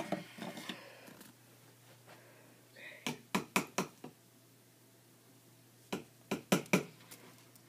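Sharp taps or knocks in two quick runs of about four each, about three seconds apart, from a hand handling the plastic container the crickets are kept in.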